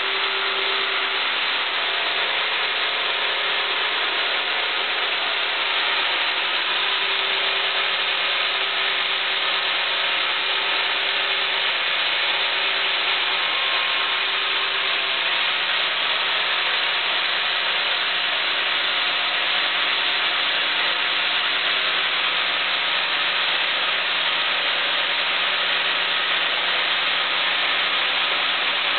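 Sawmill band-saw headrig ripping a zelkova (keyaki) log lengthwise as the carriage feeds it through the blade. A steady, even cutting noise with a low hum under it.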